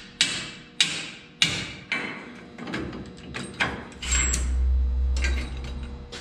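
Hammer blows on metal: four hard ringing strikes about half a second apart, then a run of lighter taps. About four seconds in, a low steady hum runs for about a second and a half.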